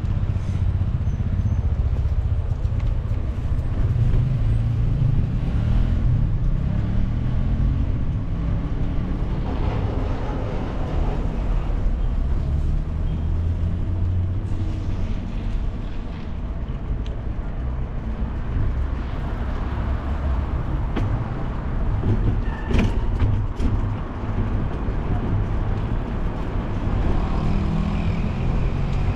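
Street traffic heard over a steady low rumble: a car engine rises in pitch as it accelerates a few seconds in and again near the end, with a few sharp knocks about two-thirds of the way through.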